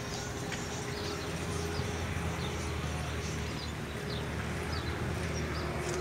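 A steady low mechanical hum, with faint short high chirps now and then.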